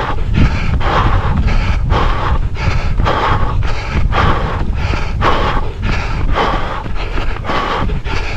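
Runner's heavy rhythmic breathing, about two breaths a second in time with the stride, over a steady rumble of wind on the microphone.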